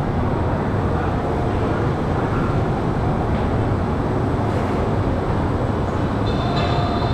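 Cobra's Curse spinning roller coaster car rolling along its track, a steady rumble heard from on board.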